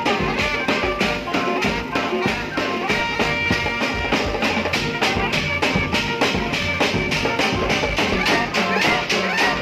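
Thai village brass band (trae wong) playing a dance tune: brass horns over a steady drum beat of about four beats a second.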